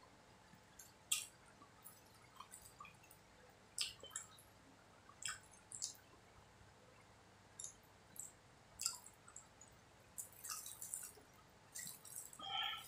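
Faint close-miked chewing of soft, sticky sweet martabak (martabak manis with chocolate and corn topping): scattered wet mouth clicks and smacks, the sharpest about a second in, with a short run of faint rustling near the end.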